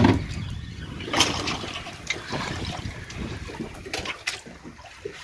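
Water sloshing and lapping against the hull of a small boat, with a few scattered light clicks.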